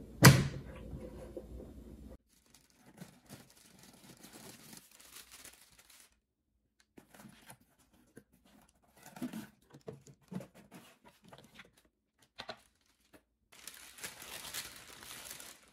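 A sharp clack near the start as the air fryer oven's glass door is pulled open. Then on-and-off rustling and crinkling of cardboard and paper or plastic packing as it is pulled out of the oven and off the wire racks.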